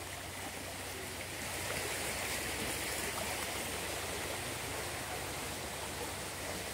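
Fast-flowing small river, its water rushing steadily.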